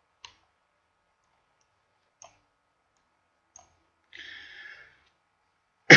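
Computer mouse clicks, three faint single clicks spaced one to two seconds apart, then a soft hiss for under a second and a loud sudden thump right at the end.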